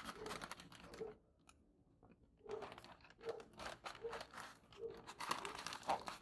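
Thin plastic courier mailer bag crinkling and rustling as it is cut with scissors and pulled open by hand, in crackly bursts with a short pause about a second in.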